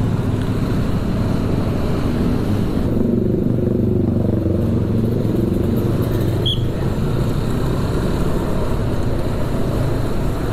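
Motorcycle engine running at road speed, heard from the rider's seat with road and wind noise; its note dips and picks up again as the bike eases through traffic. A brief high chirp sounds about six seconds in.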